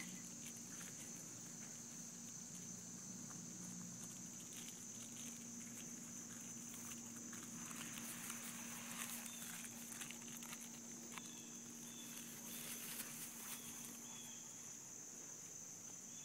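Two dogs tugging and scuffling over a toy on grass: soft rustling, patter and scuffs of paws, busiest in the middle stretch. Behind it runs a steady high-pitched insect drone, with a few short repeated chirps near the end.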